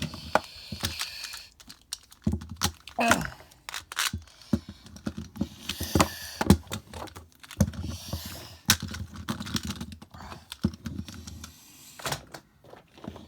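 Irregular sharp clicks and taps, like typing on a keyboard, scattered through the stretch, with a short gliding sound about three seconds in.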